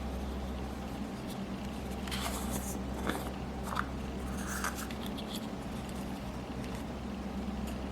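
Slime being worked by hand: scattered small wet clicks, pops and squishes, mostly in the middle of the stretch and again near the end, over a steady low hum.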